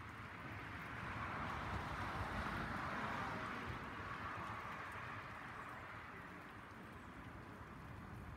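A vehicle passing on a nearby road: a rush of tyre noise with no tone in it, swelling for a few seconds and fading away.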